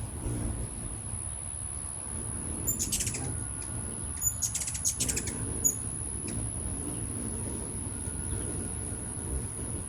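Hummingbirds giving short, very high chip calls in quick clusters, about a third and halfway through, over a steady low hum.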